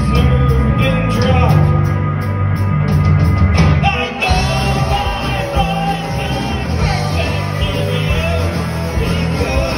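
Live rock band playing loud: electric guitars over bass and drums. About four seconds in, the music briefly dips and shifts into a new section.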